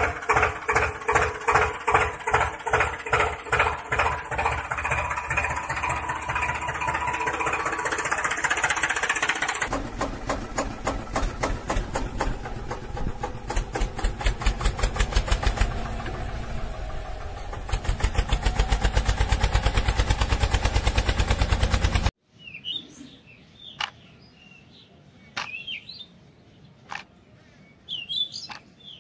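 Tractor engine running, pulsing about two to three times a second. About 10 s in it changes to a faster-running engine, which gets louder about 18 s in and cuts off suddenly about 22 s in. After that there are birds chirping and a few light taps.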